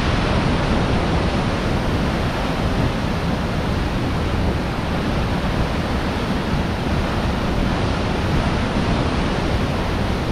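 Apikuni Falls and the cascading creek below it: a steady, unbroken rush of falling and tumbling water, heavy in the low end.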